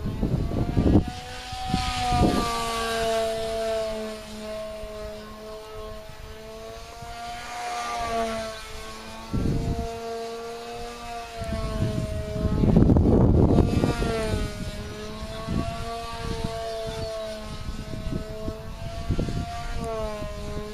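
A small RC plane's motor and propeller droning in flight, the pitch wavering up and down as the plane manoeuvres and passes. The prop sounds harsh and noisy from a slight nick in one blade. Gusts of wind buffet the microphone now and then.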